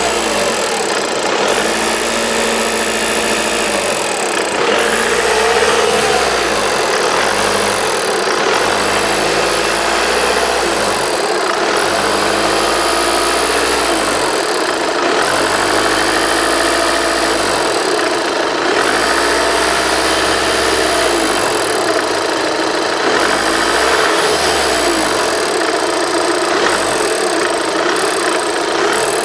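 Volkswagen Passat CC 2.0 TDI diesel engine running with a higher-pitched rattle that the owner fears is a fault. The engine pitch rises and falls repeatedly, every few seconds.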